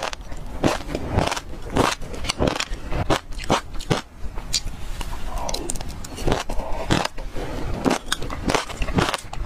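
Chewing and crunching a mouthful of fruit pulp full of small seeds, with many sharp irregular crackling clicks. A metal spoon scrapes and clinks in a glass mug.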